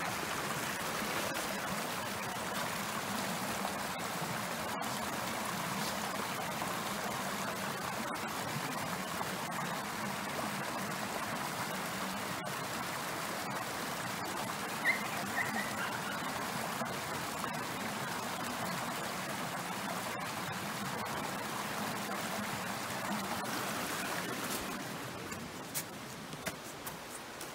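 Mountain stream flowing steadily over its bed, easing slightly near the end, with a few light clicks.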